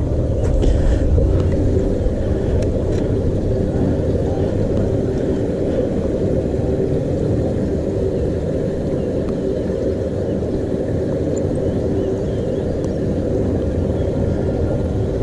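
Wind buffeting the camera microphone: a steady low rumble, with a faint steady hum underneath.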